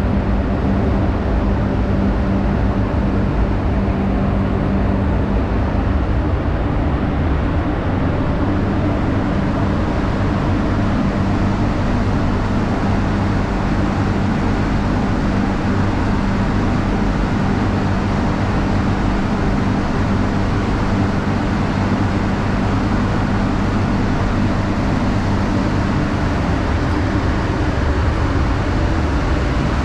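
Paint spray booth running: a steady, loud rush of the booth's air fans with a low hum underneath.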